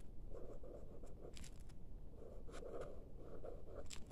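Pen writing on notebook paper: faint, irregular scratching strokes as letters are written.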